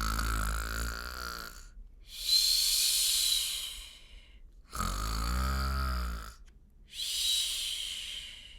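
A woman imitating a bear's snoring: two slow snore cycles, each a rough buzzing snore followed by a long breathy hiss.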